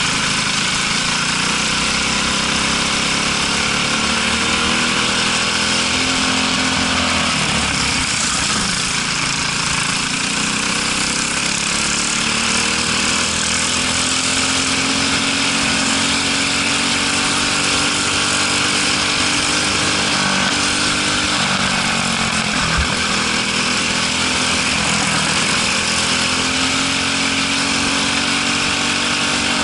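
Briggs & Stratton LO206 single-cylinder four-stroke kart engine heard from onboard at racing speed. Its pitch climbs steadily along the straights and drops sharply as the kart lifts off for a corner, about seven seconds in, again about twenty-one seconds in, and near the end, building back up each time.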